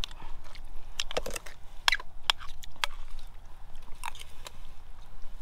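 Metal ladle clinking and scraping against a cooking pot and a plastic food container as curry is served over rice: a scattered series of sharp clicks and knocks.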